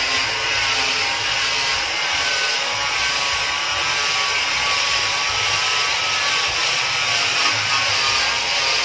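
Handheld electric angle grinder fitted with a sanding disc, running steadily as it sands a wooden plank: an unbroken motor whine under the hiss of the disc rubbing the wood.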